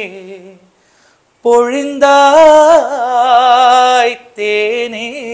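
A man singing a Tamil film song unaccompanied, in long held notes with vibrato. The singing breaks off briefly about a second in and resumes loudly, with a short break near the end.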